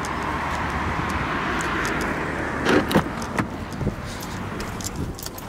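Road traffic noise, a car passing that swells and then fades about halfway through, followed by several light clicks and knocks.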